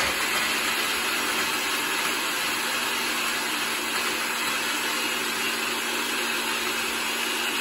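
Countertop blender running steadily with an even hum, blending papaya, evaporated milk and ice into a smoothie.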